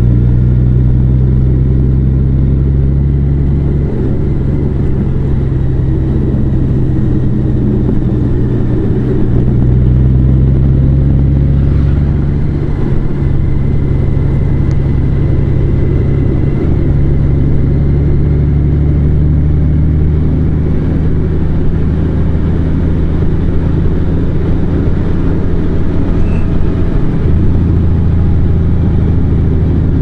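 Large motorcycle engine running steadily while riding, its note stepping up or down a few times along the way.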